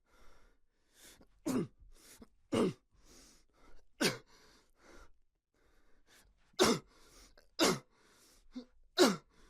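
A person's voice grunting with effort and pain, as when taking punches in a fight: six loud, short grunts, each falling sharply in pitch, with softer breaths and gasps between them.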